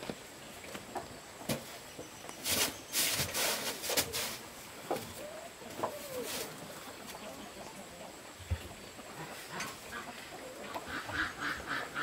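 Farm waterfowl calling, with a rapid run of repeated calls near the end; several sharp knocks come earlier.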